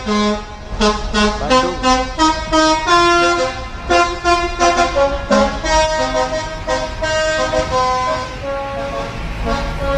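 A tour bus's 'telolet' multi-tone musical horn playing a fast, tune-like run of notes, about three to four a second, over a low rumble.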